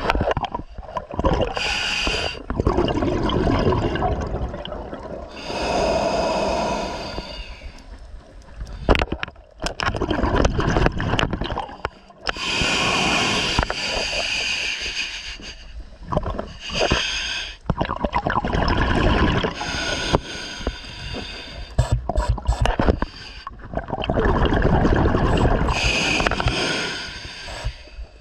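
Open-circuit scuba regulator breathing: a short hissing inhale, then a longer gurgling rush of exhaled bubbles, repeating several times.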